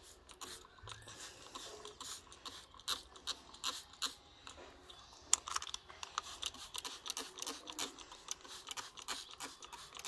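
Hand-held trigger spray bottle spritzing liquid onto a potted plant, mixed with crackly rustling of leaves and buds being handled: faint, irregular short clicks and crackles, several a second.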